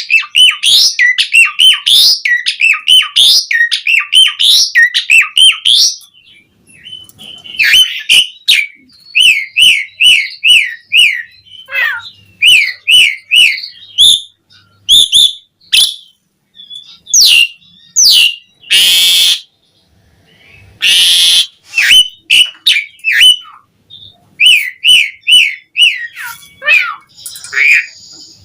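Javan pied starling (jalak suren) singing vigorously: runs of quick, repeated down-slurred whistled notes, several a second, broken by short pauses and, partway through, two harsh rasping calls.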